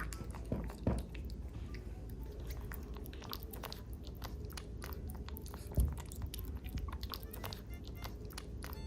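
Kitten eating its food: many soft, irregular chewing clicks, with a low thump about a second in and another near six seconds.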